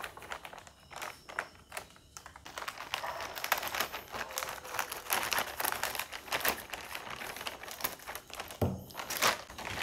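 Scissors cutting open a plastic poly courier mailer, the plastic film crinkling and crackling in many quick strokes as it is cut and handled.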